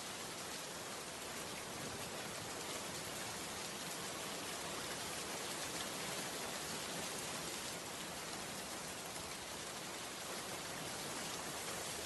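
A steady, even hiss with no distinct events, like rain falling or constant background noise.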